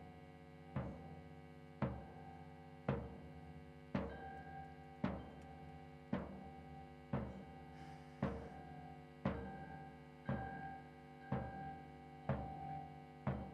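Instrumental music: a slow, steady drum beat, one hit about every second, over a held chord. The hits come a little closer together near the end.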